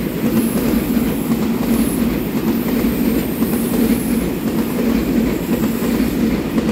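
Taiwan Railway EMU3000 twelve-car electric multiple-unit express train passing at speed close by: steady, loud running noise of wheels on rails, with a faint high tone that comes and goes.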